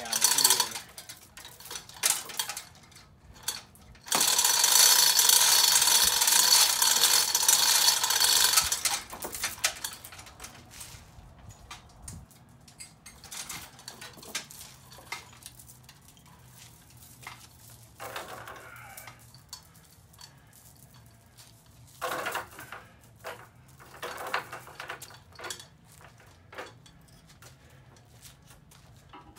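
Hand-operated chain hoist being worked: the chain rattles through the hoist with ratchet-like clicking. A loud run of fast, continuous chain rattle starts about four seconds in and lasts about five seconds, followed by scattered clicks and shorter rattles.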